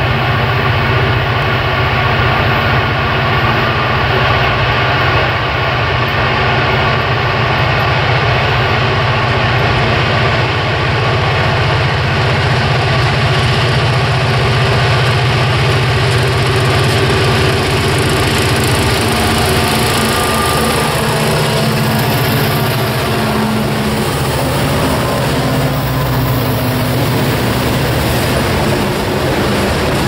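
Lead EMD SD40-2 and SD60M diesel locomotives working under power, their two-stroke engines giving a steady low drone as they approach and pass. About two-thirds of the way through, the engine sound drops away and the freight cars' wheels rumble and clatter over the rails.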